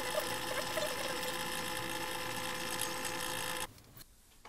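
HP G9 laptop's cooling fan running at full speed as the machine boots after an update restart, a steady whir that cuts off suddenly about three and a half seconds in as the boot hands over to the Windows welcome screen.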